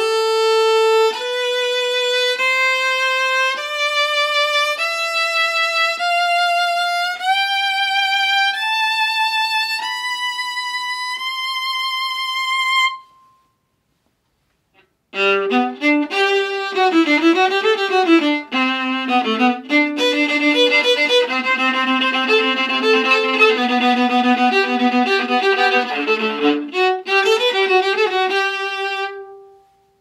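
Sergio Peresson 16⅝-inch viola bowed: a slow rising scale of held notes, each stepping higher, then a pause of about two seconds, then a quicker passage of shorter notes lower in pitch.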